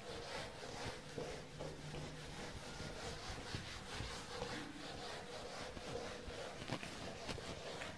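Faint rubbing of a handheld eraser wiping a whiteboard, in repeated short strokes.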